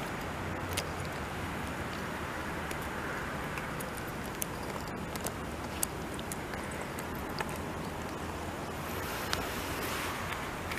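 A dog's teeth scraping and clicking on a stone it is gnawing: a few faint, scattered clicks. Under them runs a steady outdoor rumble and hiss, which is louder than the clicks.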